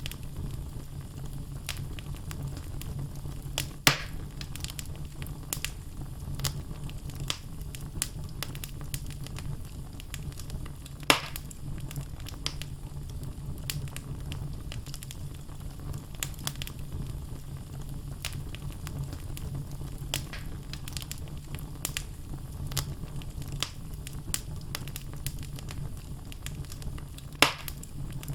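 Wood fire burning in a fireplace: a steady low rumble of flames under frequent crackles and pops from the logs, with three louder pops, about four seconds in, about eleven seconds in, and near the end.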